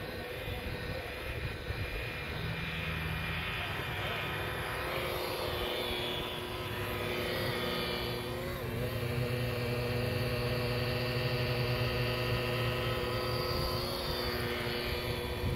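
DeWalt DWP849X rotary buffer running with a wool pad against a boat's gelcoat, a steady motor whine whose pitch wavers slightly as the pad is pressed and moved. The pad is cutting oxidation out of the gelcoat with heavy-cut compound.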